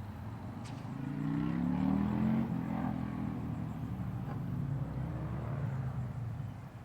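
A motor vehicle passing by, its engine note growing to a peak about two seconds in and then fading away.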